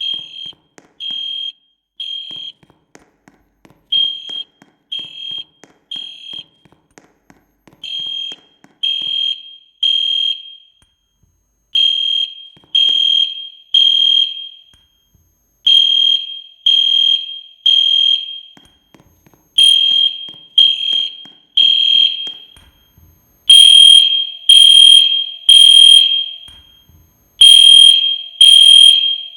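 Fire alarm sounding the temporal-three evacuation pattern: three high-pitched beeps about a second apart, then a short pause, repeating over and over, and louder about three-quarters of the way through. It is a false alarm, going off with nothing having set it off.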